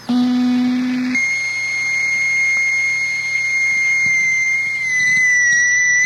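Electronic noise music: a sudden, loud low buzzing tone for about a second, then a steady shrill high tone, like an alarm beep held on, that wavers slightly in pitch near the end.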